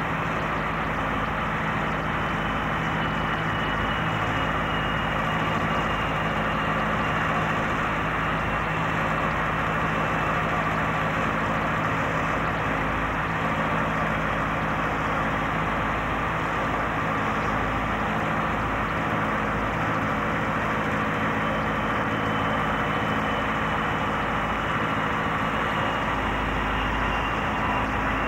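Steady drone of jet aircraft engines running on an airfield, with a faint high turbine whine over a constant low hum.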